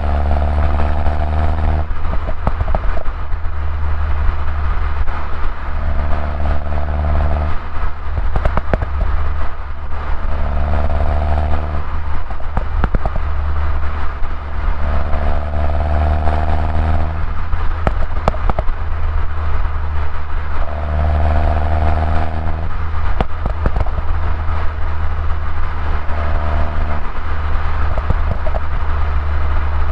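A 2011 Mini Cooper S (R56) on its stock exhaust, its 1.6-litre turbocharged four-cylinder running while driving: a steady low drone, with the engine note swelling in several stretches of a second or two and brief crackles between them.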